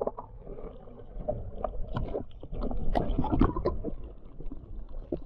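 Muffled water noise heard from below the surface: bubbles and sloshing, with irregular small pops and clicks over a low rumble.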